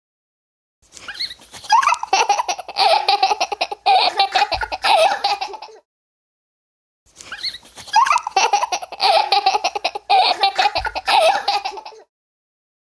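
A little girl laughing, high-pitched and in rapid bursts, in two bouts of about five seconds each with a short silence between them.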